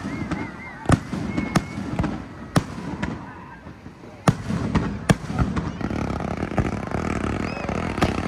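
Aerial fireworks shells bursting in sharp, irregular bangs about a second apart, over the rumble of launches.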